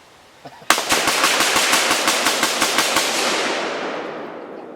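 Rifle shot setting off about half a pound of tannerite packed in an old water heater. It is a sudden blast just under a second in, followed by a rolling rumble that fades away over about three seconds.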